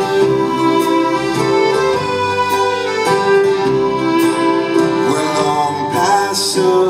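Live band playing an instrumental passage of a waltz, with sustained melody notes over a steady beat.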